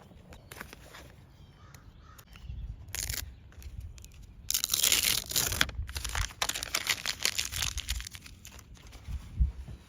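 A worn sanding disc being ripped off the hook-and-loop pad of a DeWalt palm sander and a new disc handled and pressed on: short tearing and crinkling sounds, loudest about halfway through.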